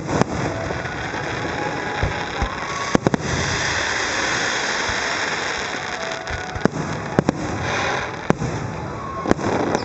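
Aerial fireworks display: sharp bangs of shells bursting over a continuous crackle, with a denser hissing crackle of crackling stars about three seconds in.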